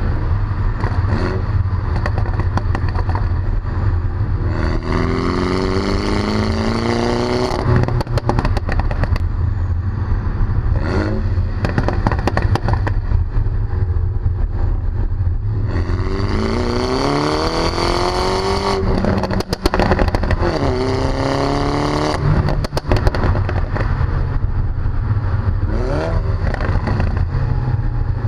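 Mini John Cooper Works F56's 2.0-litre turbocharged four-cylinder through a Pro Tuning exhaust, heard at the tailpipes on the move. It pulls hard twice, the revs climbing each time, and each pull is followed by sharp pops and crackles as the throttle lifts. Heavy wind rumble on the microphone runs underneath.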